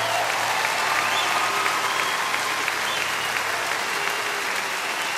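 Live concert audience applauding and cheering at the end of a song, with shrill whistles through the clapping.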